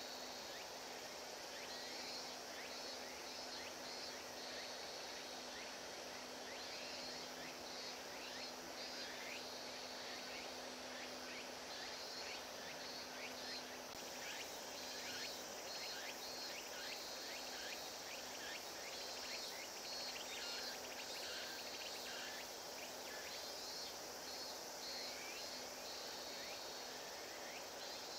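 Faint ambience of insects chirping in repeated pulsed bursts over a steady background hiss, with a low hum that fades about halfway through.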